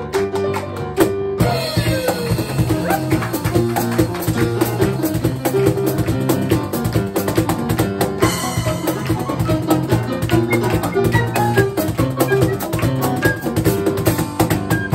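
Live flute, keyboard piano and percussion trio playing an upbeat tune, with busy, steady drum and cymbal hits driving the rhythm under piano chords and the flute melody. The percussion drops away right at the end.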